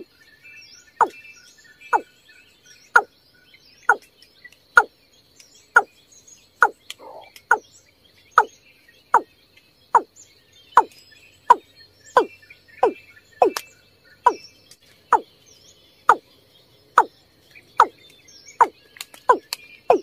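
Watercock calling: a series of short, low notes about one a second, coming faster near the end. A faint steady high insect tone and small chirps sit behind the calls.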